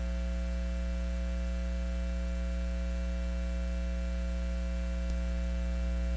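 Steady electrical mains hum, a low buzz with a ladder of higher overtones, and one faint click about five seconds in.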